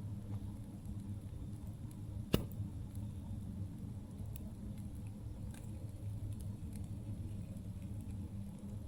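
Wood campfire burning, with a low steady rumble and scattered small crackles, and one sharp loud pop about two and a half seconds in.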